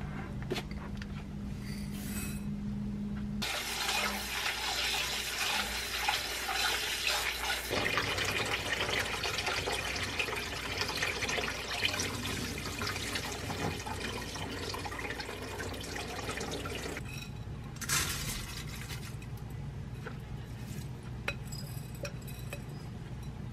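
Kitchen tap water running into a glass bowl while brown rice is washed by hand, the water swishing. It starts a few seconds in and stops well before the end, leaving a few light clinks of glass.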